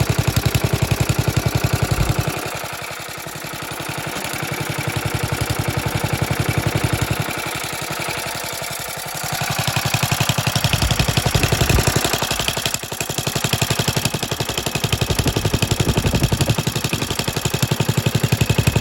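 Restored Petter PA1 single-cylinder stationary engine running hot, a steady even exhaust beat that grows fainter twice, a few seconds in and again in the middle, before coming back up.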